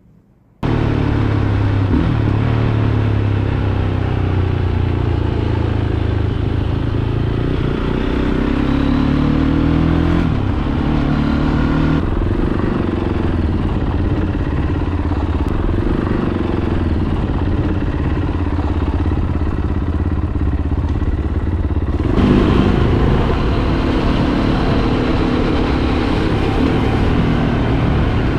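Fantic Caballero 500's single-cylinder engine running as the motorcycle is ridden, heard from the rider's position, starting suddenly about half a second in. Its pitch shifts up and down several times with throttle and gear changes.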